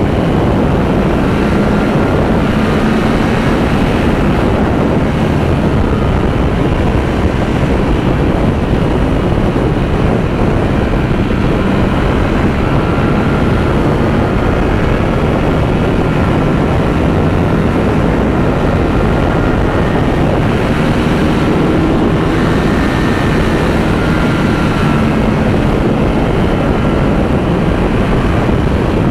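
Ducati V4 motorcycle on the move: the engine's drone under heavy wind rush on the microphone, at an even level with slight drifts in engine pitch.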